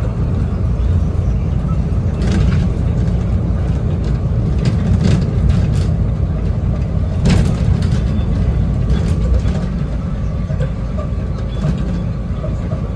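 Single-deck service bus cruising at speed, heard from inside the passenger cabin: a steady low engine and road rumble, with a few short knocks a couple of seconds apart.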